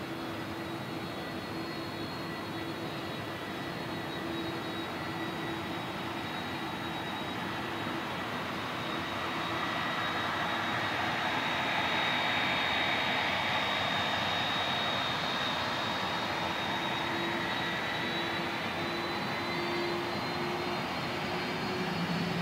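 Airbus A330 airliner's jet engines running at low taxi power as it taxis past: a steady rush with a high, steady whine that swells to its loudest about halfway through and then eases off a little.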